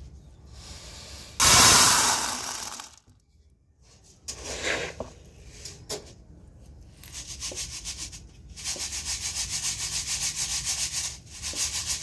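Wheat grain poured from a steel bowl in a loud rush about a second and a half in, then grain hissing in quick, regular strokes, about four a second, as it is shaken in a round sieve to clean it.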